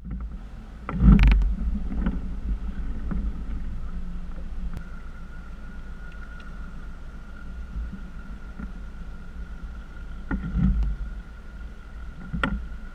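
Fishing boat idling on the water: a steady low rumble with a faint steady high tone, and three louder bumps, about a second in and twice near the end.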